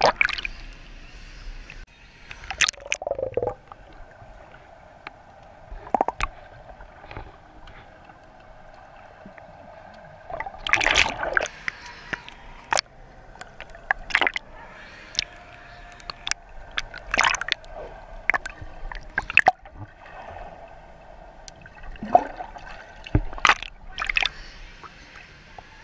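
Pool water gurgling, sloshing and splashing around a camera held at the waterline as it dips under and comes back up, with sharp splashes scattered throughout.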